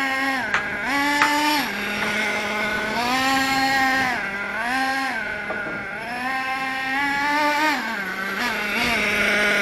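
Small nitro engine of a Hot Bodies Lightning GT radio-controlled car running at high revs. Its pitch rises and falls again and again, every second or two, as the throttle is worked.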